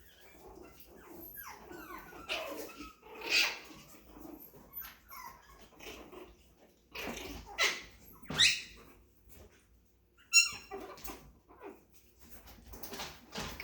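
Chihuahua puppies play-fighting, one puppy letting out a string of short high yips and squeals as his brother plays rough with him; the loudest, sharpest squeal comes about ten seconds in.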